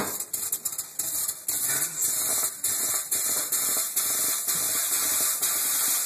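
Water hitting freshly cast, still-hot aluminum in a stainless steel sink and flashing to steam, a steady hiss. A sharp knock right at the start.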